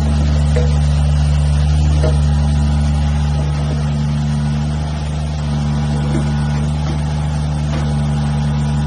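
Mini excavator's diesel engine running with a steady low drone, easing slightly about halfway through, with a few faint clicks over it.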